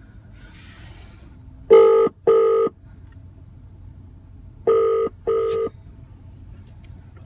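Ringback tone of an outgoing phone call played through a car's hands-free speakers: two double rings about three seconds apart, each a pair of short, steady tones. It means the called phone is ringing and has not yet been answered.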